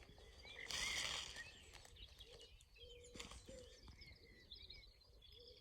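Faint outdoor birdsong from several birds: high, thin chirps and warbling throughout, with a few short low notes from the middle on. A brief hiss about a second in, and a single click a little past halfway.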